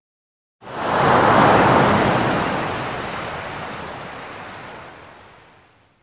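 A single ocean wave breaking: the wash starts abruptly about half a second in, swells within a second and then slowly fades away over the next few seconds.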